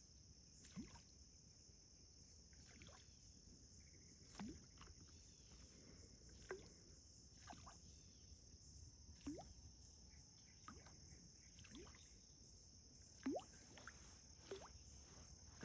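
Faint night insect chorus, a steady high-pitched buzz, with short rising chirp-like calls every one to two seconds.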